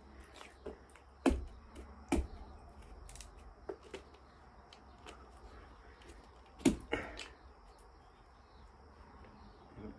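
A few sharp knocks and cracks as a knife is jabbed into a durian's spiky husk to split it open, the loudest about two-thirds of the way through, over a faint steady high hiss.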